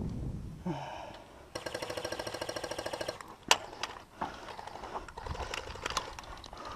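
Airsoft electric rifle firing a rapid full-auto burst of about a second and a half, with a single sharp crack about a second later and lighter clicks after it.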